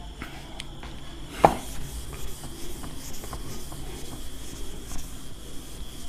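A sharp knock about one and a half seconds in, then a whiteboard duster rubbing and wiping across the board's surface.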